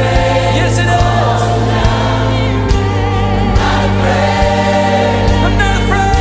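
Gospel song: choir and lead voices singing with vibrato over held bass notes and a steady beat.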